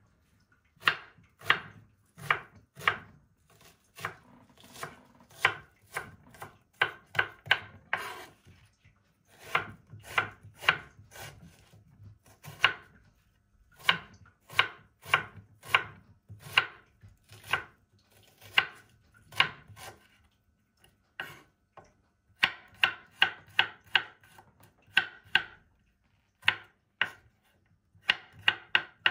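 Knife chopping an onion on a wooden chopping board: runs of sharp knocks, two or three a second, broken by short pauses.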